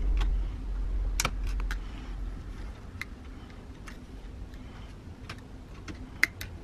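Small, sharp metal clicks and ticks of needle-nose pliers working at the carbon-brush holder and switch terminals inside a Metabo angle grinder's plastic housing, with a low handling rumble in the first couple of seconds. The sharpest click comes near the end.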